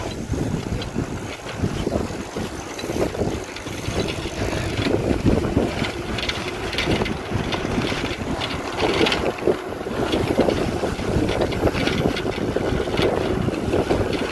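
Wind buffeting the microphone of a camera carried on a moving bicycle, with a steady rushing noise and many irregular knocks and rattles from the bike as it rides along.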